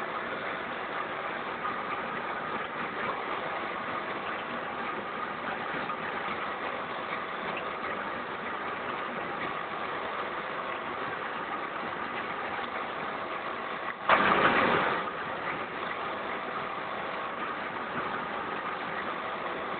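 Vertical auger flour-packing machine running steadily, with a sudden loud burst of rushing noise about two-thirds of the way through that lasts about a second and fades.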